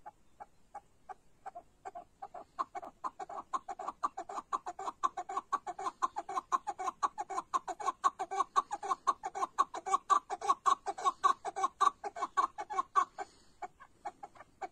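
Chukar partridge calling: a long run of short clucking notes that begins slow and sparse, quickens and grows louder into a rapid chatter of about five notes a second, then stops about thirteen seconds in, with one or two stray notes near the end.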